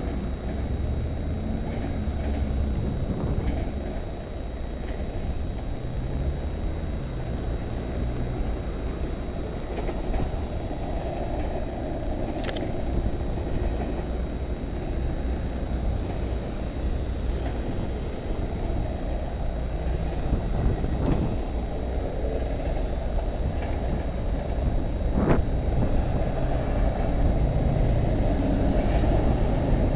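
Freight cars of a CN train rolling past with a steady low rumble of wheels on rail, with a few brief clicks.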